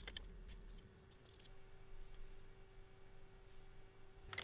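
Near silence: faint workshop room tone with a steady low hum. A single sharp click sounds right at the start, a light metal tap.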